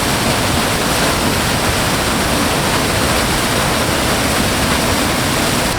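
Rifle Falls' triple waterfall heard up close: a loud, steady rush of falling water.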